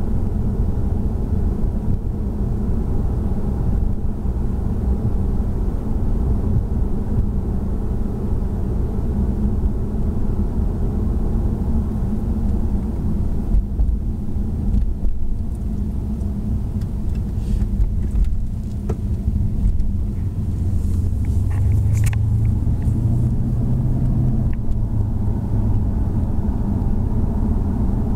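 Steady low rumble of a car driving, heard from inside the cabin, with a few light clicks around the middle and a stronger low hum for a few seconds after that.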